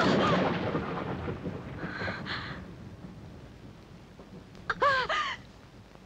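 A loud rumbling crash at the start that fades away over about two seconds. A woman's short gasps and a pair of sharp falling cries follow about five seconds in.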